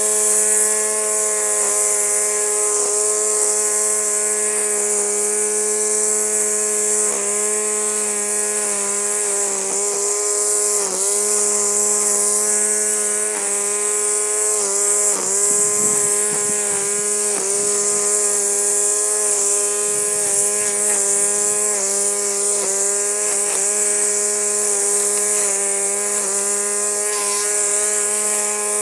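Craftsman 60-volt cordless string trimmer running at full speed: a steady, loud electric-motor whine with the hiss of the spinning nylon line, dipping briefly in pitch a few times as the line cuts into grass.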